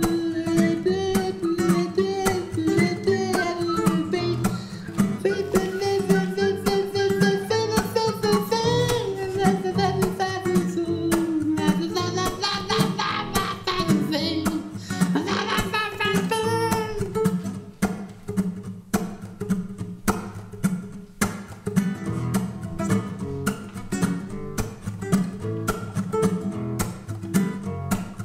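Acoustic guitar music: steady strumming with a wavering melody line over it for the first part, then the strummed guitar carries on alone from about two-thirds in.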